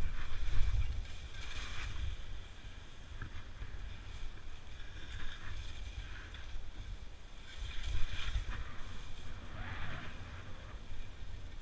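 Touring skis hissing and scraping over wind-packed snow on a downhill run, in uneven swishes that swell with each turn. A steady low rumble of wind on the microphone runs underneath.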